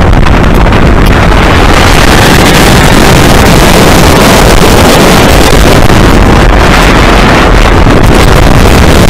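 Steady loud wind buffeting the microphone over the rumble of an Arrow looping steel roller coaster train running its track at speed, heard from the front seat. The rush grows brighter and hissier about two seconds in.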